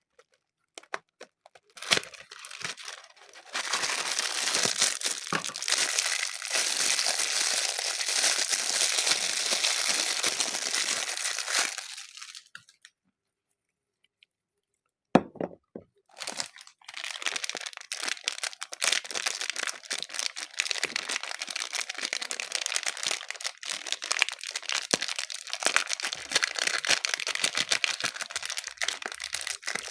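Soap wrappers being torn open and crumpled by hand: two long stretches of dense crinkling and tearing, separated by a short pause with a single sharp click in the middle.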